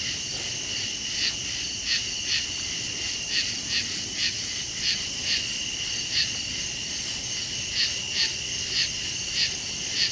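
Night insects calling: a steady high-pitched trill with sharper chirps breaking through about once or twice a second.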